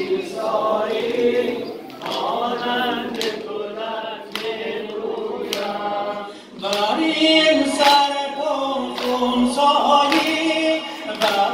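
Muharram mourning chant (noha) sung by a male voice with many mourners' voices joining in, over sharp beats about once a second, typical of the chest-beating (sineh-zani) that goes with it. The singing grows louder about two-thirds of the way in.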